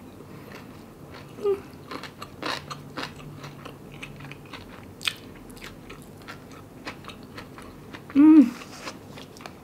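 Close-miked chewing of kimbap and kimchi: many small wet mouth clicks and soft crunches. There is one short hummed "mm" with falling pitch near the end.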